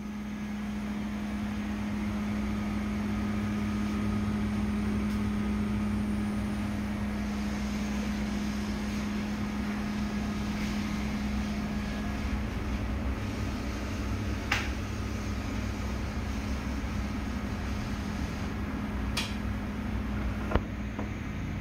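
Steady machine hum with one low, even tone, like a fan or air conditioner running. A few sharp clicks come in the second half, the loudest about a second before the end.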